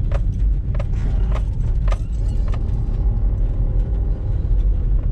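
Car road noise heard from inside the cabin while driving: a steady low rumble of engine and tyres. A regular light tick sounds about every 0.6 seconds through the first half.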